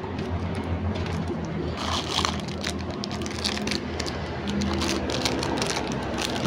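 Clear plastic bag crinkling and crackling as it is handled. Under it runs the steady low hum of a motor vehicle engine.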